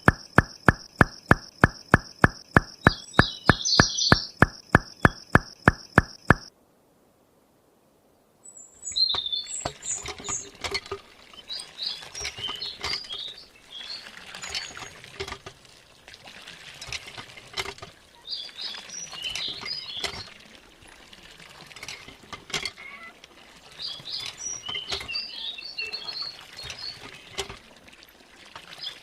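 Background music with a steady beat of about three strokes a second, cutting off suddenly. After a short silence, small birds chirp in a flurry with scattered light clicks and taps.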